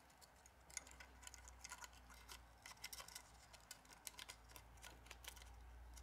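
Faint, irregular small clicks and ticks of a smartphone's replacement LCD screen assembly and frame being handled, over a low steady hum.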